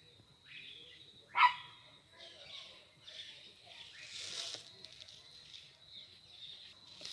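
Crickets trilling steadily, with one short, sharp animal call about a second and a half in, the loudest sound, and fainter scattered animal sounds after it.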